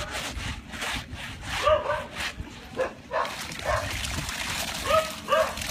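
Clothes being scrubbed by hand on a concrete washing slab in brisk rubbing strokes, while a dog barks in short, high yelps several times, often two in quick succession.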